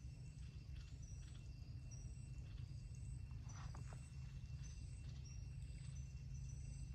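Quiet forest ambience at a still pool: short high chirps repeat over a steady thin high tone and a low rumble, with a brief rustle of clicks a little past the middle.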